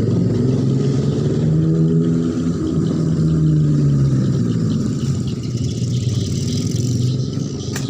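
An engine running steadily, its pitch and level rising about two seconds in and easing off after four seconds.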